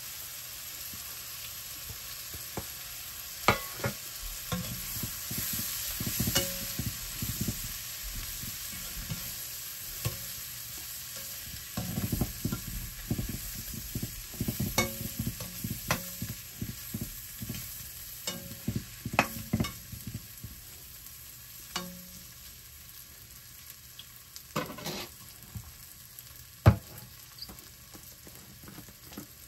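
Chilli powder and coriander powder frying in oil in a cooking pan: a low, steady sizzle under a spoon stirring and scraping the pan, with scattered clicks that are busiest around the middle. One sharp knock of the spoon on the pan comes near the end.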